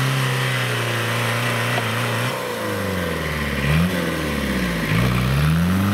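Mini tractor engine revving, held high for about two seconds, then dropping and rising again several times.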